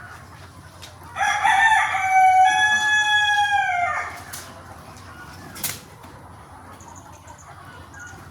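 A rooster crows once, a call of about three seconds starting about a second in, its pitch sagging away at the end. A single short click follows a little later.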